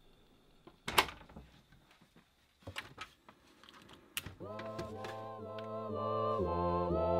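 A few sharp clicks as an iPod is plugged into its dock and a button on the home theater stereo is pressed. Then, about four seconds in, music with held, vocal-like notes starts and grows louder.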